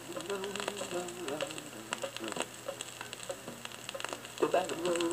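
Vinyl record playing on a turntable: a quiet instrumental passage with surface crackle and pops, and the band coming in louder about four and a half seconds in.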